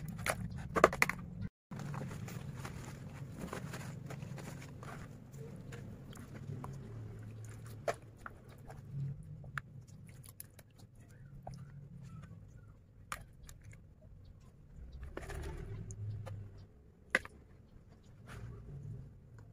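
Wet squishing and scraping of hands mixing patin catfish pieces through spice paste in a plastic bowl, with scattered sharp clicks and knocks against the bowl. A low hum runs underneath.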